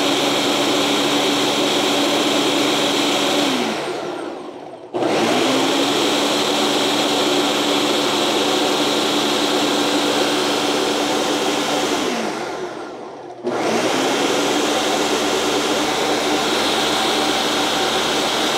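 Ninja Professional Plus BN801 blender's 1400-watt motor running its automatic Auto IQ smoothie program on frozen fruit and water. It runs at full speed, winds down with a falling whine about four seconds in, then cuts back in sharply a second later. It winds down again around twelve seconds and restarts about a second after that.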